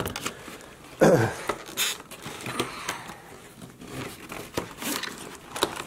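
Cardboard-and-clear-plastic toy box being handled and pulled at, with irregular crinkling, rustling and small clicks, and a louder thump about a second in.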